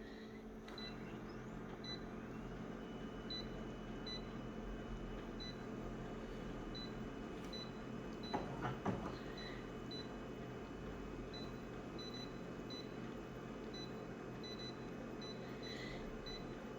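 A steady electrical hum with short, faint high beeps repeating about once a second, and a couple of brief knocks about eight and a half seconds in.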